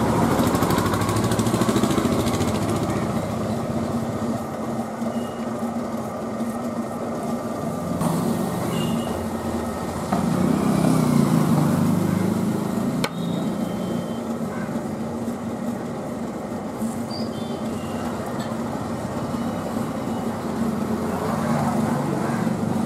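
Motor-driven potter's wheel running with a steady hum while wet clay is thrown into a pot by hand, with a sharp click about 13 seconds in.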